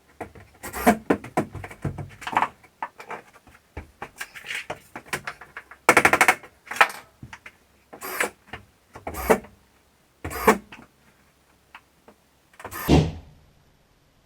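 Power screwdriver driving drywall screws into sheetrock in short rattling bursts, one after another, about a dozen in all.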